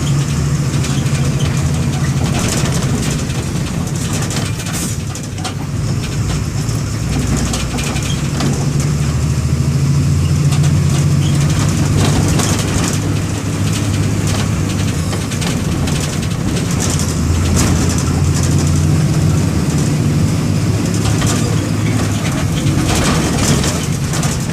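MWM 6.12 TCE inline-six diesel of a Volksbus 17-230 EOD bus running as the bus travels, its low note rising and falling with load, with frequent short knocks and rattles.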